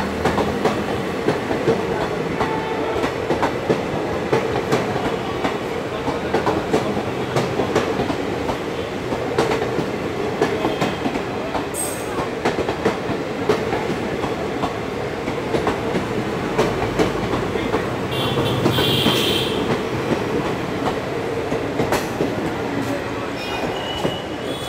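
Indian Railways express passenger coaches passing at speed: a steady wheel-on-rail rumble with rapid clickety-clack of the wheels over the rail joints. A brief high squeal comes about three-quarters of the way through.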